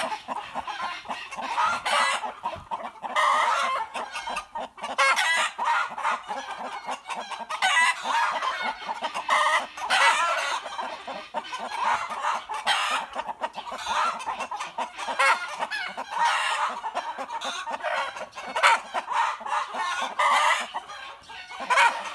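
A flock of chooks and roosters squawking and clucking in a continuous, agitated chorus, with roosters calling among them.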